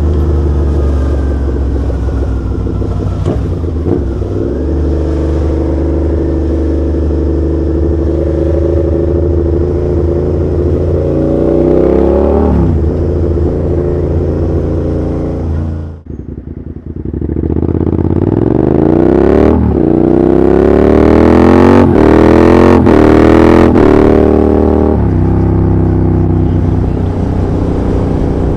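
Suzuki SV650's V-twin engine through an SP Engineering Stubby GP exhaust with the baffle removed, recorded on the bike. It cruises steadily, and the sound dips sharply for about a second just past halfway. The engine then pulls hard, its pitch climbing through a brief dip at a gear change to its loudest about three quarters in, and settles back into a steady cruise.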